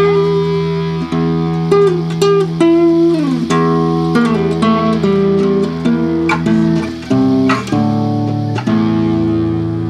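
Instrumental guitar music: a melody of plucked single notes, some sliding up or down in pitch, over held low notes.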